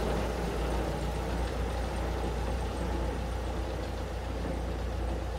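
Engine of a small ex-Bord na Móna narrow-gauge diesel locomotive running steadily as it moves along the track, a constant low drone.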